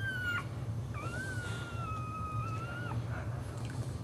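Boxer bitch whining in labour as she delivers a puppy: a short high whine, then a long, steady, slightly falling whine of about two seconds. A steady low hum runs underneath.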